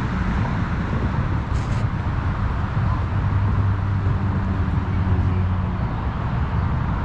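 Steady low outdoor rumble and hiss, with a low hum that grows stronger through the middle seconds.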